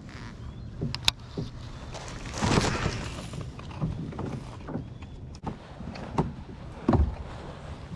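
Knocks and clicks of gear being handled aboard a fishing kayak, with a brief rush of noise about two and a half seconds in and a heavier thump near the end.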